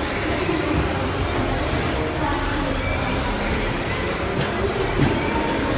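Electric 1/10-scale off-road RC buggies racing in an indoor hall, their motors whining faintly up and down over a steady loud din of the crowded venue, with one knock about five seconds in.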